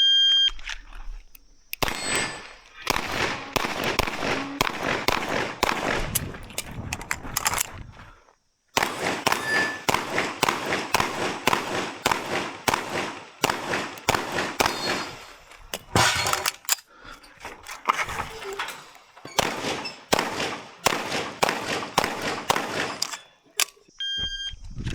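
A shot-timer beep, then a 9mm CZ Shadow 2 pistol firing long strings of rapid shots with short pauses between them, with steel targets ringing on hits. A second timer beep comes near the end.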